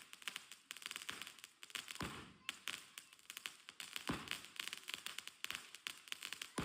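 A 25-shot crackling aerial fireworks cake firing. A low launch thump comes about every two seconds, and dense rapid crackling from the bursting shells fills the time between.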